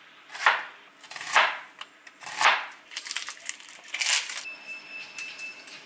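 Chef's knife slicing through a white onion onto a cutting board: three slow, crisp cuts about a second apart, each ending on the board, then a quicker run of lighter scrapes and clicks. A faint steady high tone comes in near the end.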